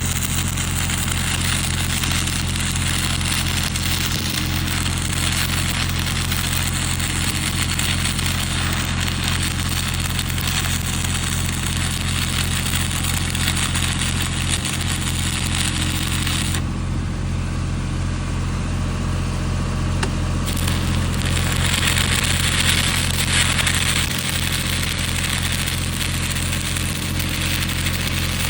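Stick (SMAW) welding arc crackling and hissing over a steady low electrical hum. The arc goes out for about four seconds a little past the middle, leaving only the hum, then strikes again.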